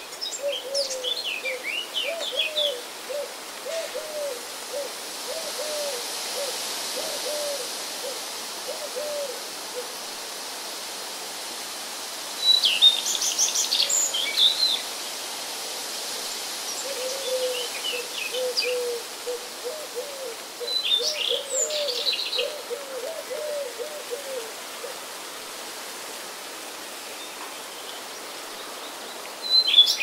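Night ambience: an owl hooting in two long runs of short, quick hoots, with bursts of high bird chirps between them over a steady hiss.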